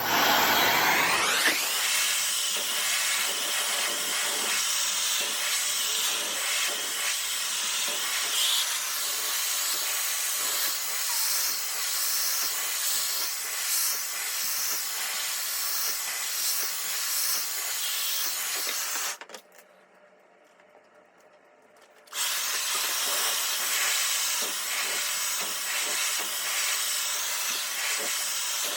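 Dyson Supersonic hair dryer running with its smoothing nozzle: a steady rush of air with a faint high whine. It spins up with a rising sweep at the start, cuts off about nineteen seconds in, and starts again about three seconds later.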